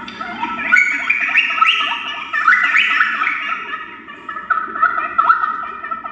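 A group of dolphins whistling and chirping: many short, overlapping rising whistles, several a second.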